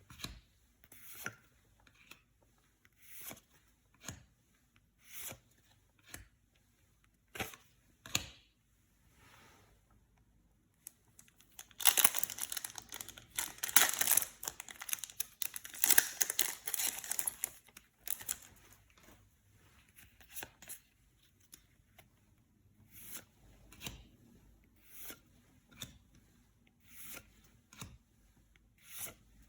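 Foil trading-card booster pack being torn open and crinkled, loudest in the middle. Before and after it come short, soft rustles of card handling, about one a second.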